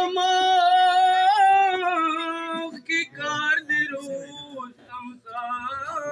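A man singing a Pashto ghazal in full voice. He holds one long note with a wavering ornament in the middle for about two and a half seconds, then goes on in shorter phrases.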